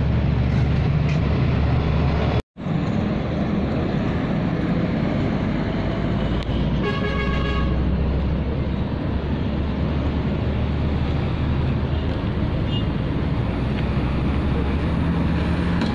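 Road traffic passing with a steady low engine rumble, and a vehicle horn sounding once, briefly, about seven seconds in. The sound cuts out for a moment about two and a half seconds in.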